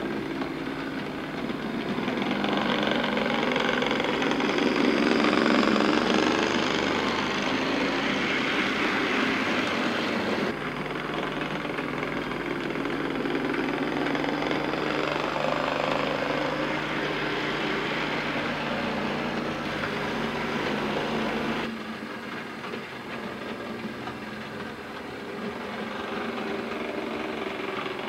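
OO gauge model Class 35 Hymek diesel locomotive running on the layout's track, its electric motor whirring and the wheels of the loco and freight wagons rattling along the rails. The running noise is steady and changes abruptly twice.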